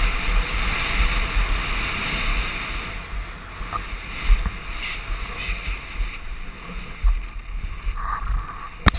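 Mountain bike ridden fast down a loose dirt and gravel track, heard from a helmet-mounted camera: wind buffeting the microphone as a low rumble, tyres hissing over the dirt, and a few sharp knocks as the bike jolts over bumps, about four seconds in and again around seven seconds.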